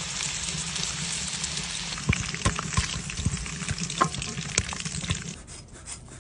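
Whole potatoes sizzling in hot oil in a frying pan, with several sharp knocks as they are turned with a wooden spatula and lifted out. The sizzle stops about five seconds in.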